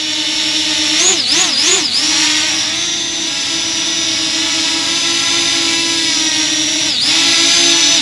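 Parrot Anafi quadcopter's propellers whining loudly as it hovers low to land, one steady high buzz. Its pitch swings up and down three times about a second in and dips briefly near the end as the motors change speed.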